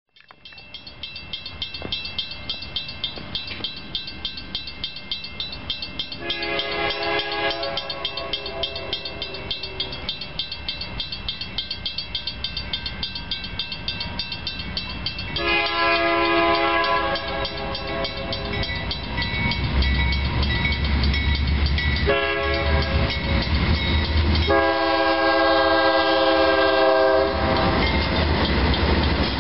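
A grade-crossing bell rings steadily while an approaching freight train's locomotive sounds its air horn in the grade-crossing pattern: long, long, short, long. From about two-thirds through, the low engine rumble of three GE Dash 9-44CW diesel locomotives passing the crossing joins in.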